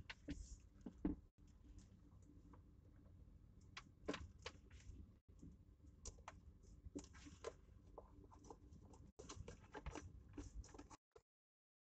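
Faint, irregular clicks, taps and rustles of a hand rummaging around a car's center console, over a low rumble; the sound cuts off near the end.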